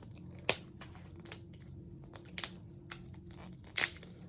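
Crinkling and tearing of the plastic wrapping on a Mini Brands toy capsule as it is unwrapped by hand. A few sharp crackles stand out among softer ticks, one about half a second in, one midway and one near the end.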